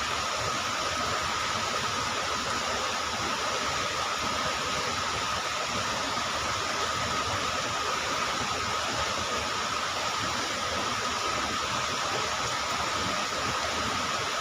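Steady rushing of flowing river water, with a thin steady high tone running above it.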